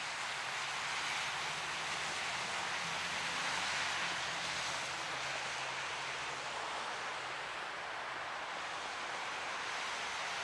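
Steady hiss of distant road traffic, tyres on a wet, snowy road, with a faint low engine hum in the first few seconds.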